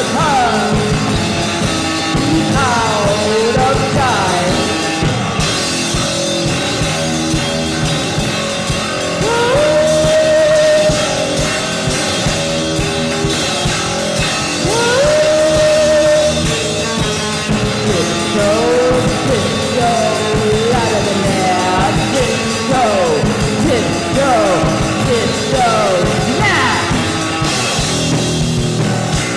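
Goth rock song played by a band with a drum kit. A lead melody slides between notes and twice holds a long note.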